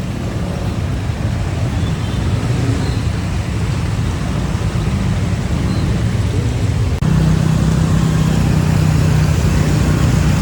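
Road traffic rumble of passing vehicle engines. About seven seconds in, it cuts abruptly to a louder, steadier engine hum.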